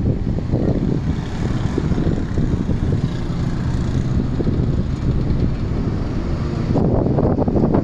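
Wind buffeting the microphone over the low rumble of a moving vehicle; the buffeting grows heavier about seven seconds in.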